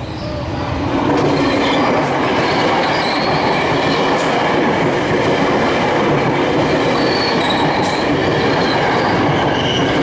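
KRL commuter electric train passing close by, a steady loud rumble of wheels on the rails that builds over the first second, with faint high wheel squeal over it.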